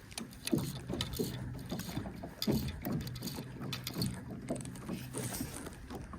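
Small fishing boat rocking on wind-driven chop: water slapping the hull with irregular knocks and clatter, over a low steady hum.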